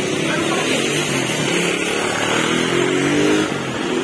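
A large intercity coach passing close by: the steady drone of its diesel engine over tyre and road noise, the engine note climbing a little as it goes.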